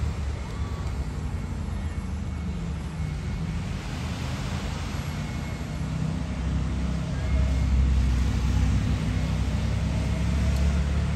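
Diesel engine of a crawler crane on a work barge running steadily with a low rumble, growing louder about two-thirds of the way in.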